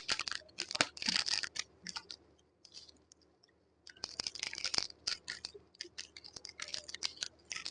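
Crinkling and rustling of food packets and packaging being handled, in bursts with many small clicks and taps, and a pause of about a second and a half in the middle.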